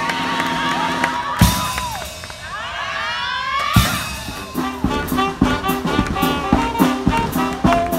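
Live band music with brass instruments: a held note, a sudden bang about a second and a half in, then a cluster of rising sliding notes and another bang near the middle, followed by a bouncy rhythmic tune with sharp percussive hits.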